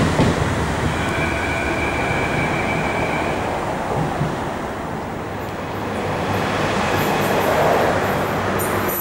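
Athens Metro Mitsubishi–Rotem electric train pulling away: the high whine of its traction motors fades out about three seconds in, leaving the rumble of wheels on track.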